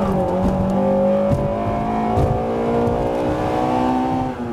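Car engine pulling hard under acceleration. Its pitch climbs slowly and drops as it shifts up a gear, just after the start and again near the end.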